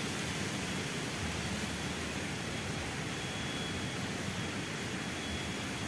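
Steady, even rushing of a flowing river.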